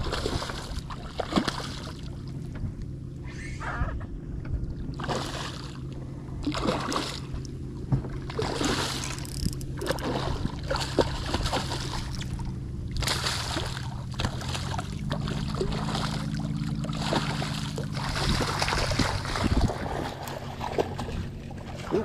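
Hooked redfish thrashing and splashing at the surface beside the boat, in repeated bursts every second or two, over a steady low hum.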